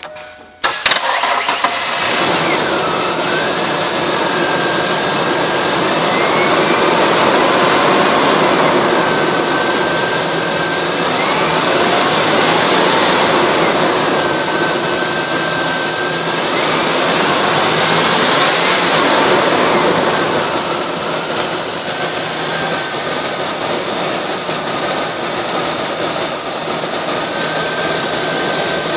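2002 Ford Explorer engine starting about half a second in, then running steadily, with a faint whine that rises and levels off several times.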